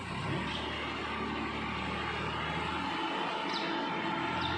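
Massey Ferguson tractor's diesel engine running steadily under load while hauling a heavily overloaded trolley.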